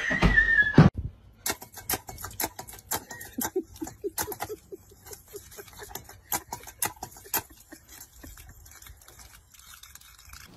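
Loud noise in the first second that stops suddenly. Then irregular light splashes and taps from a step-on paw-pedal pet water fountain as a dog drinks at its water jet.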